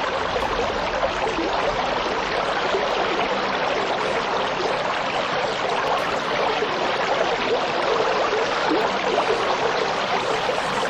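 Fast water rushing steadily, an even, unbroken wash of turbulent flow.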